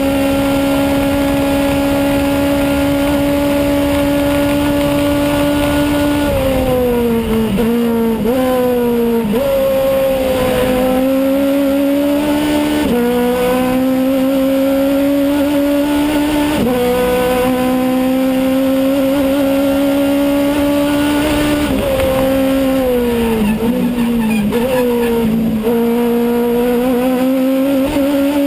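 Aussie Racing Car's engine at racing revs, heard from inside the cockpit. It holds a steady high note for about six seconds, then falls and climbs in steps several times with quick blips as the gears are shifted.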